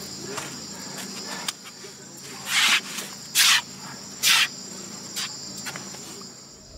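Steady high chirring of crickets, with three loud hissing bursts a little under a second apart in the middle.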